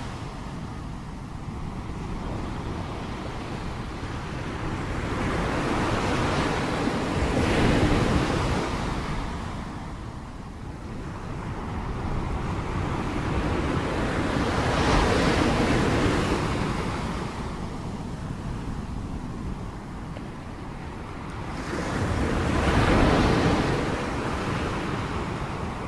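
Sea waves breaking and washing ashore, the surf swelling and falling back about every seven or eight seconds, with some wind on the microphone.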